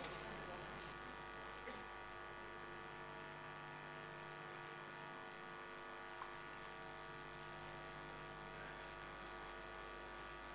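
Faint, steady electrical mains hum made of several steady tones, with a tiny tick about six seconds in.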